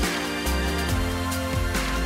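Instrumental background music: held notes over a bass line that shifts from note to note.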